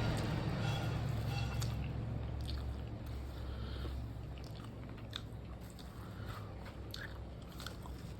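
A person chewing a mouthful of rice and curry, with wet mouth clicks and smacks at an uneven pace over a low steady hum.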